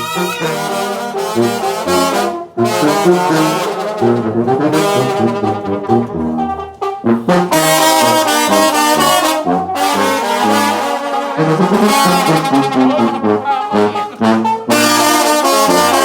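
Sinaloan banda playing live, an instrumental passage with trumpets and trombones carrying the melody over low bass notes, with short breaks between phrases.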